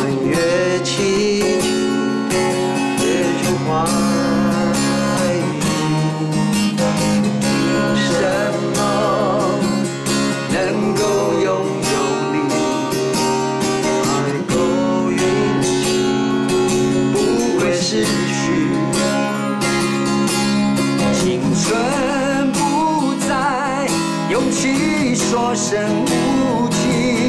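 A man singing a Mandarin pop song, holding long notes with vibrato, accompanied by a strummed acoustic guitar.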